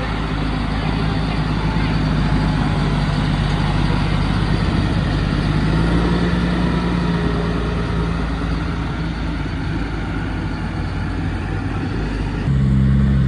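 Large farm tractor engine running steadily with a low note, its pitch shifting slightly about halfway through. Near the end the sound cuts abruptly to a louder, deeper engine.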